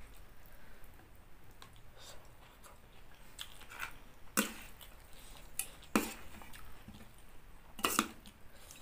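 Close-up chewing of food with small mouth clicks, and a metal spoon clicking sharply against the bowl three times in the second half.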